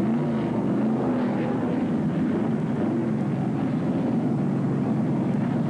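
A pack of NASCAR stock cars running flat out, their V8 engines making a steady, loud drone.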